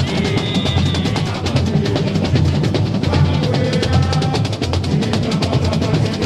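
Samba school percussion section (bateria) playing a fast, dense samba rhythm: deep surdo bass-drum beats under rapid snare and other drum strokes.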